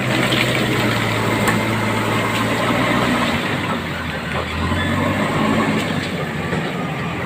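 JCB backhoe loader's diesel engine running steadily while working, with its engine note dropping slightly about halfway through.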